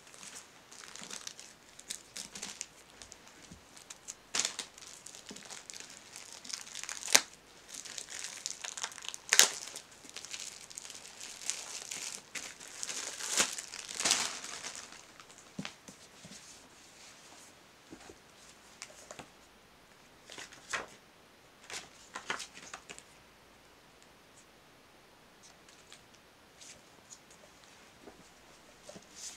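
Plastic shrink-wrap being cut with scissors and torn off a paperback book: crinkling and tearing with a few sharp snaps. It is busiest in the first half and thins to occasional rustles after about fifteen seconds.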